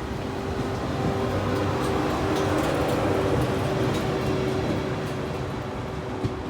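Electric train moving through the station, a steady rumble with a held electric tone that swells to its loudest about halfway through and then eases off. A sharp click near the end.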